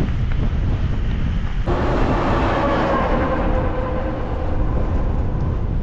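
Strong gale-force wind buffeting the microphone. About two seconds in, a humming sound with a few steady tones joins it abruptly and slowly fades.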